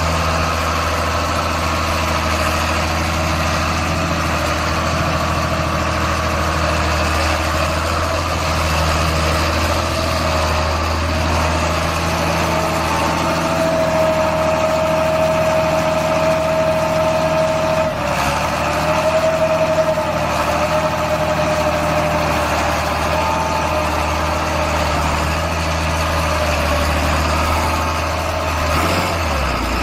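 The diesel engine of a John Deere rubber-tracked tractor running steadily, with a whine that grows stronger about halfway through and wavers briefly about two-thirds in.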